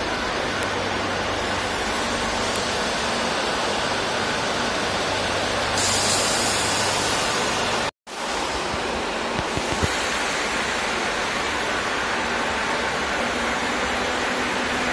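Madrid Metro 2000A-series train's steady running noise as it moves along the platform, with a brief high hiss about six seconds in. The sound drops out completely for a moment about halfway through, then resumes.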